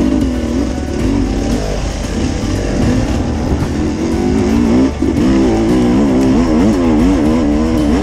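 Enduro motorcycle engine under way off-road, its pitch rising and falling over and over as the throttle is worked, with the changes coming quicker and stronger in the second half.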